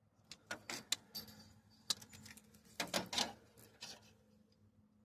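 A series of sharp clicks and rattles of hard parts being handled and fitted, with a few louder clusters around the middle.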